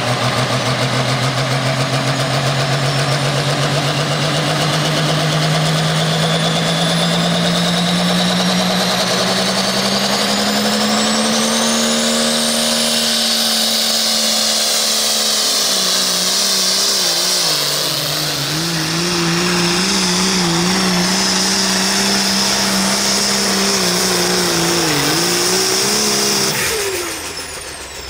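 Turbocharged diesel engine of an International super stock pulling tractor running at full throttle under load as it drags the sled, with a high turbo whine over it. The engine pitch climbs slowly through the first half, then wavers and dips, and a little before the end the throttle is cut and the sound drops away sharply.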